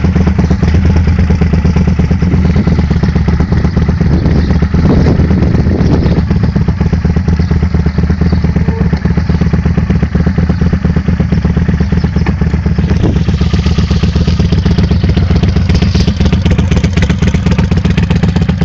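Kawasaki Vulcan 800's V-twin engine idling steadily, with a fast, even beat of firing pulses.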